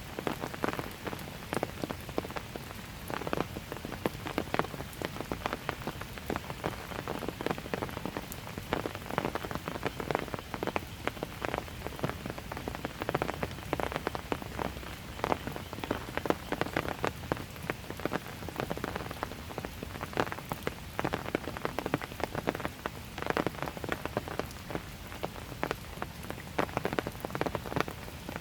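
Steady light rain falling on hard surfaces, with many individual drops pattering and ticking irregularly over a soft continuous hiss.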